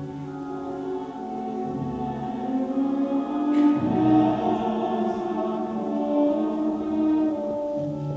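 Slow music of long held chords, swelling to its loudest about four seconds in, then easing.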